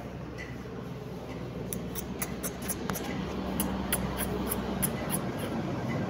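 A quick run of small, sharp clicks, about three a second, over a steady low rumble.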